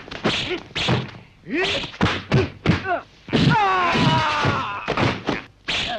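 Fight-scene soundtrack of an old martial-arts film: a quick series of dubbed punch and kick thuds mixed with fighters' shouts, with one long cry falling in pitch a little past halfway.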